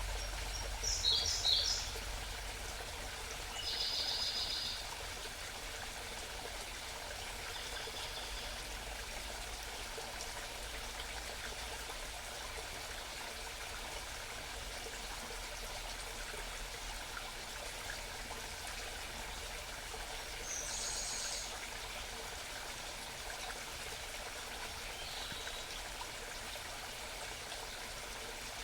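Small mountain stream trickling steadily, with wild birds calling over it: a quick run of high notes about a second in, then short high trills a few seconds in, again about two thirds of the way through, and faintly near the end.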